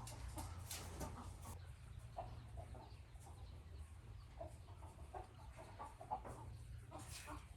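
Chickens clucking softly, many short separate clucks scattered throughout.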